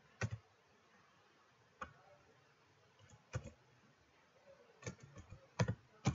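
Computer keyboard keystrokes: sparse, separate key clicks with pauses between them, coming faster in a short run near the end.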